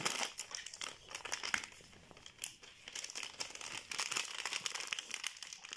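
A plastic packet of chaat masala crinkling and rustling as the spice is shaken out, an irregular scatter of light crackles.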